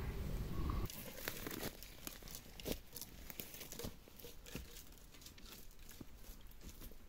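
Irregular dry crackling and rustling, like dry ground litter being disturbed, with a low rumble that cuts off suddenly about a second in.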